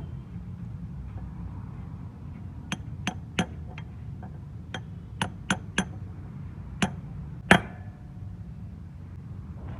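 A hammer tapping on metal: about ten sharp strikes in an uneven rhythm, the last the loudest, over a steady low rumble.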